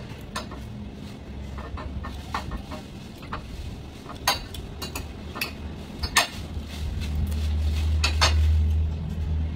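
Fork and spoon clinking and scraping against a ceramic plate in scattered taps. A low rumble builds over the last few seconds.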